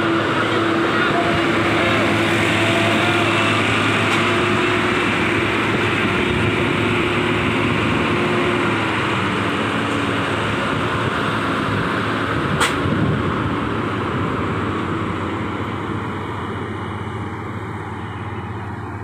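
Loaded Hino FM1J heavy trucks' diesel engines running as they pass close by, a steady drone with a held tone that drops away about nine seconds in. A single sharp click comes about two-thirds of the way through, then the engine sound slowly fades as the trucks pull away.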